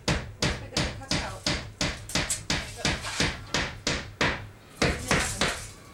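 A hammer striking nails in a steady, rapid run of blows, about four a second.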